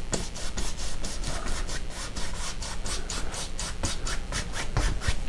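Paintbrush scrubbing wet oil paint onto canvas in quick, regular back-and-forth strokes, about five a second, blending the sky colours wet-in-wet.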